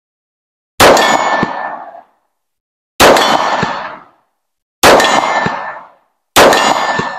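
Four handgun shots, about two seconds apart and getting slightly quicker. Each is a sharp crack that trails off over about a second into a metallic ring.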